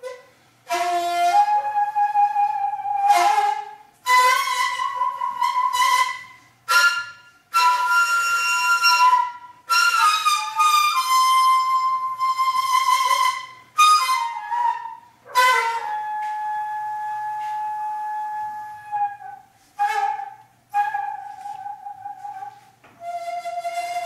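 Solo daegeum, the large Korean bamboo transverse flute, playing a slow melody in phrases of long held notes with short breaths between them, including one long held note in the middle.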